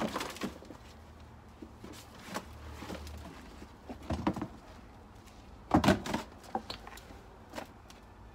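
A potato-growing tub of soil being tipped out into a wheelbarrow, landing with a thud. This is followed by a few separate knocks and thuds, the loudest about six seconds in, as the potatoes are dug out of the soil by hand.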